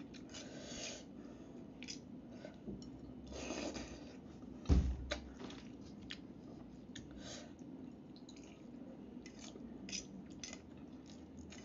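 Close-up eating sounds: chewing on a mouthful of instant noodles, with a metal fork clicking and scraping against a ceramic bowl. One dull knock about five seconds in is the loudest sound.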